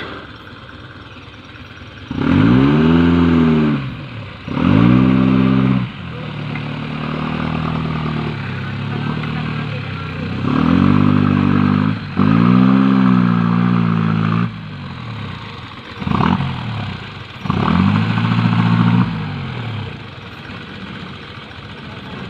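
Off-road 4x4's engine revving hard in about six bursts, each rising and falling in pitch, with lower running in between. It is the vehicle straining to climb out of a muddy rut.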